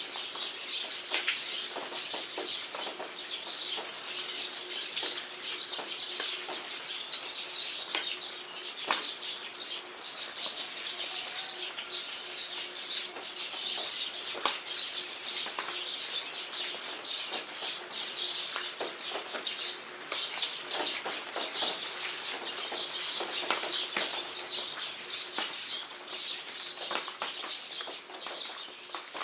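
Steady rain pattering, with many sharp drips, and small birds chirping throughout.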